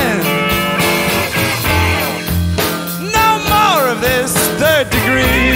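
Blues band music from an audio cassette recording, with a steady bass under a lead line that bends and slides in pitch.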